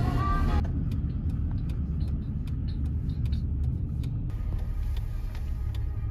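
Steady low road rumble inside a moving car's cabin, with scattered faint ticks. Background music stops in the first second.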